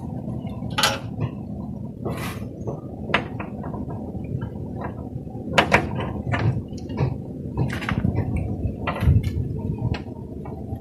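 Scattered metallic clicks and knocks of a motor control panel's door latches being undone and the door handled, over a steady low background noise.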